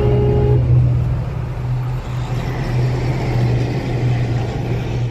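A motor vehicle driving on the road, heard from inside the cabin as a steady, loud, low engine and road drone.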